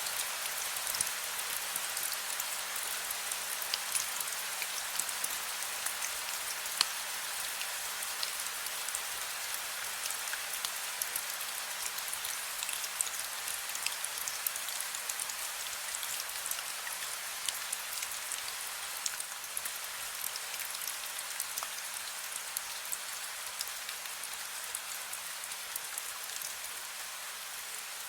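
Gentle rain falling steadily: an even hiss with many sharp drop ticks scattered through it.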